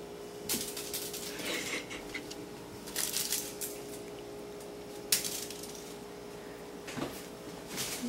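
A cat batting a small toy around under a dishwasher: light clicks and rattles as the toy knocks against the dishwasher and the floor, in about five short spells.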